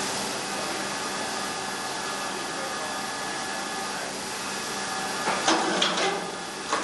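A steady machine hum that fades about five seconds in, followed by several sharp metallic clinks and clanks of a hoist chain and hook being handled.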